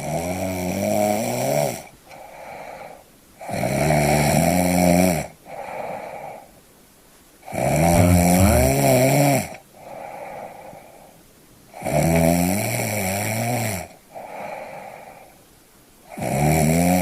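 Loud, rattly snoring in a slow, regular rhythm: a long snore of nearly two seconds about every four seconds, each followed by a shorter, quieter snore, with a fifth long one starting near the end.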